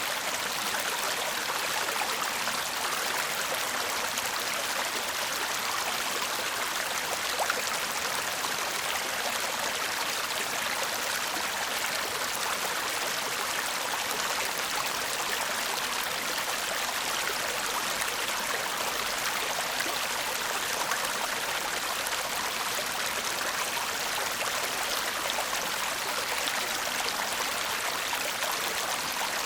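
A shallow stream babbling steadily, a constant rush of water with fine splashing and trickling detail.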